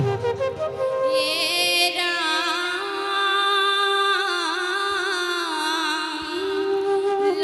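Women singing an Assamese devotional song (dihanam) in long held notes that waver and slide in pitch, over a steady lower held note.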